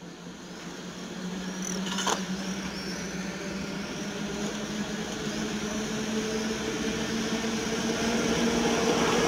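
EP07 electric locomotive approaching along the track, a steady low hum that grows gradually louder as it nears, with a single sharp click about two seconds in.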